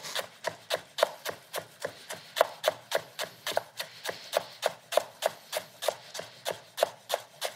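Chef's knife mincing lemongrass on a wooden cutting board: a steady, even run of quick chopping strokes, about four a second.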